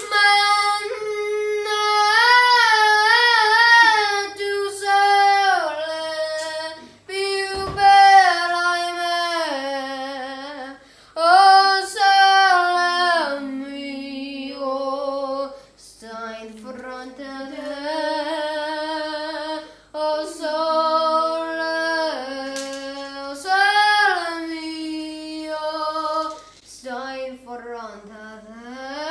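A high voice singing a slow melody with little or no accompaniment, holding long notes with vibrato in phrases of a few seconds separated by short breaths.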